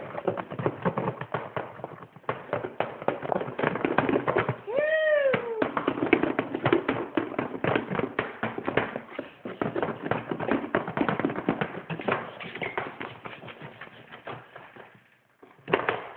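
Toddler 'driving' a plastic bowl on her high-chair tray: rapid, irregular tapping and rattling of plastic, with a child's high squeal that rises and falls about five seconds in and another short squeal near the end.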